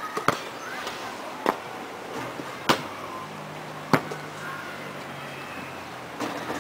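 A basketball knocking: four sharp bounces or hits, about a second and a quarter apart.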